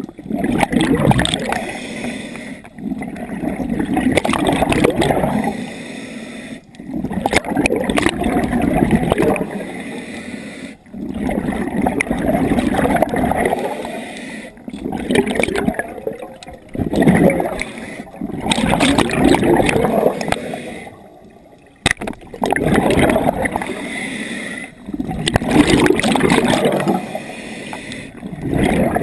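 Scuba diver's regulator breathing underwater: exhaled bubbles gurgling out in bursts of two to three seconds, each followed by a short lull for the inhale, about every four seconds.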